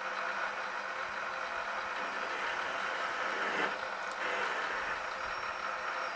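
Metal lathe running with its cutting tool taking an inward cut across a spinning steel point, a steady machining hiss over the machine's running noise. About three and a half seconds in, the sound briefly changes.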